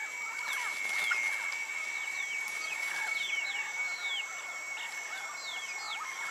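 A flock of amazon parrots calling, many short, sweeping squawks overlapping throughout, over a steady high-pitched whine.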